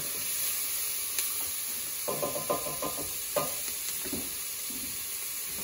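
Chopped shallots, garlic and rosemary sizzling in hot oil in a stainless steel stockpot while a silicone spatula stirs them, with a few short louder sounds from two to three and a half seconds in.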